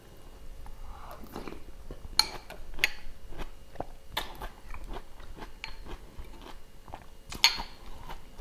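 Close-up eating sounds: a person chewing and crunching mouthfuls of rawon beef soup with noodles. A string of sharp clicks runs through it, the loudest about two seconds in and again near the end.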